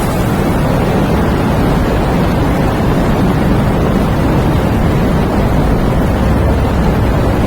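Steady wind and rain, with most of its weight in a deep, even rumble and a lighter hiss of rain above it.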